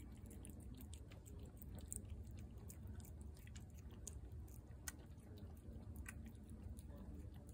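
A tabby cat chewing chunky wet cat food from a plate: faint, irregular clicks of its eating.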